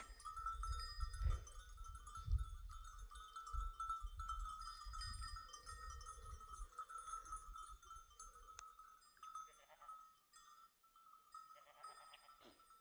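Sheep and goats bleating a few times, mostly in the second half, over a steady high-pitched hum, with low rumbling in the first half.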